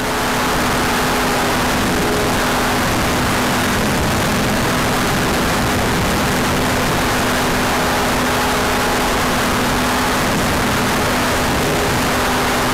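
RC model airplane's engine and propeller running at a steady, unchanging speed in flight, heard from a camera mounted on the plane with wind rushing over it.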